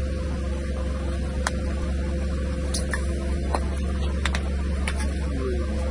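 Car engine running with a steady low hum while its tyre rolls over liquid-filled plastic piping bags, with scattered sharp pops and crackles as the bags burst under it.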